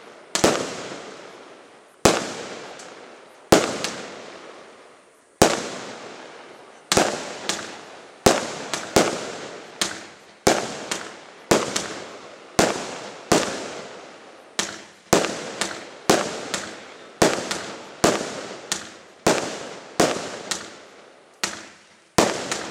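Aerial fireworks firing in succession, each shot a sharp bang that fades out over about a second. A few bangs come spaced out early, then after a short pause a faster, steady run of one to two bangs a second follows.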